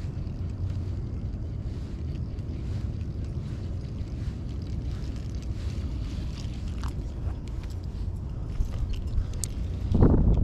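Steady low wind rumble buffeting the microphone, with a louder gust near the end.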